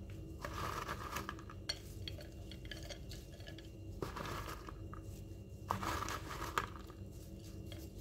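Grated cheese being mixed on a ceramic plate: soft, irregular rustling of the shreds with a few light clinks and taps against the plate.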